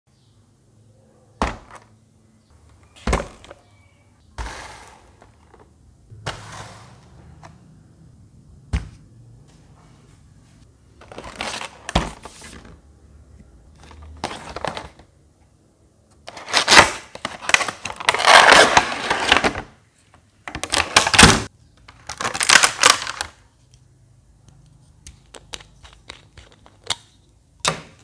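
Product packaging being handled and opened on a table. It starts with a few sharp knocks as boxes and a plastic blister pack are set down, then there is a loud run of rustling and crinkling as a clear plastic insert tray is unpacked, with light clicks near the end.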